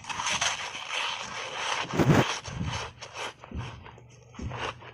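Close-miked crunching and chewing of a crunchy foam ice bar coated in milk powder: a dense crackling crunch at first, a loud bite about two seconds in, then a run of short crunches as the mouthful is chewed.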